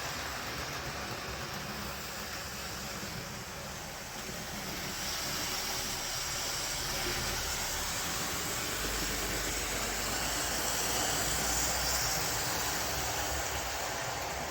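OO-gauge model train running on its track: a steady whirr and rumble of the small motor and wheels on the rails, slightly changing in level partway through.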